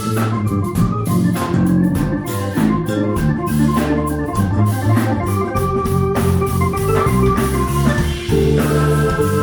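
A band playing live: sustained organ chords over a steady drum beat with bass.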